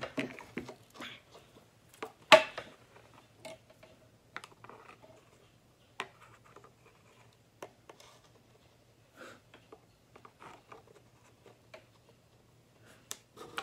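Scattered soft clicks and scrapes of a magnet wand, a disc magnet glued to a popsicle stick, sliding and tapping against a plastic bottle, with one sharper click about two seconds in.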